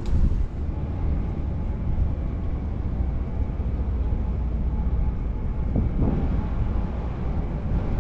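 A steady low rumble of outdoor ambience, heavy in the bass and without speech.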